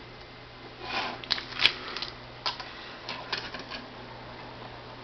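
Small plastic clicks and rattles of snap-together model kit parts being handled and pulled apart, sharpest about a second and a half in, with a few lighter clicks up to about four seconds in, over a faint steady hum.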